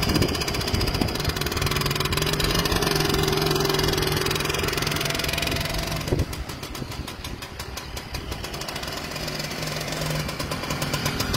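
Komar 232 moped's small two-stroke engine running just after a cold start. About six seconds in it gets fainter as the moped rides off, with its separate firing pulses showing, then it grows louder again near the end as it comes back.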